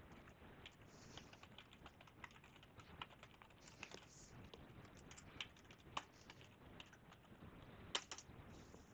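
Faint typing on a computer keyboard: irregular key clicks, with a few sharper keystrokes near the end.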